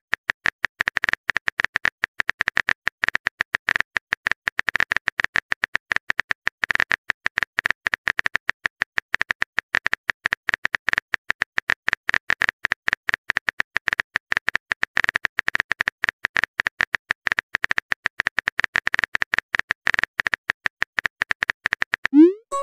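Phone keyboard typing sound effect: a fast, unbroken stream of short key clicks as a text message is typed out. A brief pitched tone comes right at the end.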